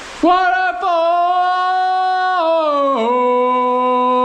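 A person's voice holding long sung notes, stepping down to a lower note about three seconds in, after a short breath at the start.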